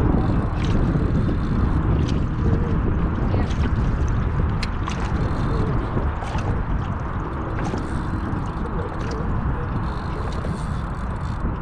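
Steady, rumbling wind noise on the microphone mixed with water moving around a small boat, with a few sharp light clicks scattered through it.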